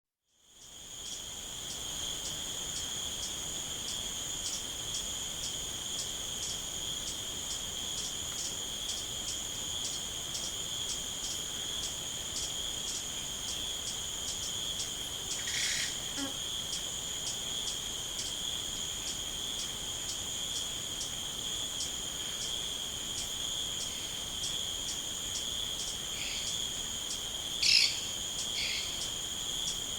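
Insects calling in one steady, unbroken high-pitched trill, with a faint regular pulsing about twice a second. A bird calls once about halfway through and a few times near the end, the loudest call coming near the end.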